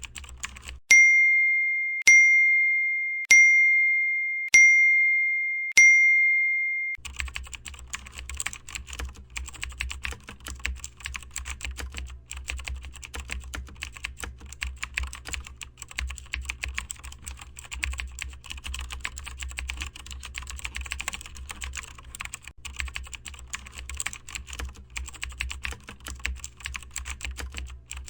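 Five single high bell-like dings about a second apart, each ringing out and fading. Then a long, rapid clatter of keyboard-typing clicks over a low hum.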